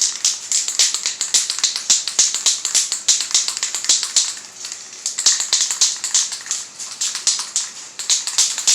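Aerosol can of spray primer being shaken hard, its mixing ball rattling in fast clicks with a couple of short pauses.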